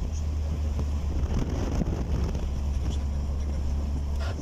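Steady low drone of a car's engine and tyres, heard from inside the moving car.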